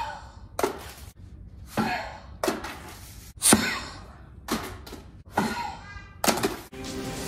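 About eight short, sharp puffs and thunks as paper rockets are blown by breath out of a paper launcher tube.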